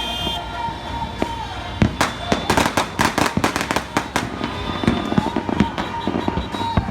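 Firecrackers going off: scattered single cracks, then a rapid string of sharp bangs lasting about two and a half seconds starting about two seconds in.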